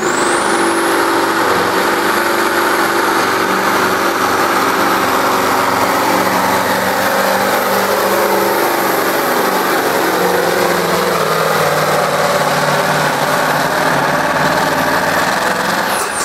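Open Street semi truck's turbo diesel engine under full throttle dragging a pulling sled, with a high turbo whine that rises as it launches and then holds. Near the end the whine drops off sharply as the throttle is let off.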